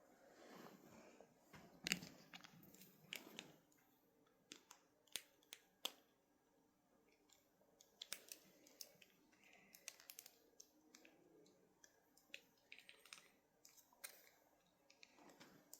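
Faint handling of a plastic action figure and its small parts: soft rustling for the first few seconds, then scattered small plastic clicks and taps, the loudest about two seconds in.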